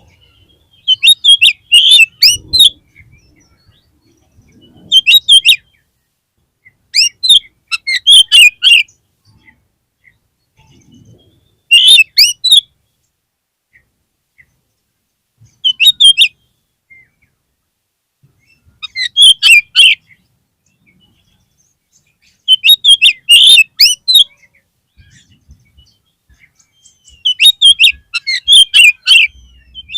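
Oriental magpie-robin (kacer) singing in about eight loud, short phrases of rapid, high whistled notes, with pauses of one to three seconds between the phrases.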